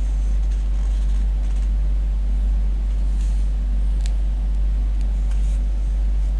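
Steady low background hum with faint hiss, and a single faint click about four seconds in.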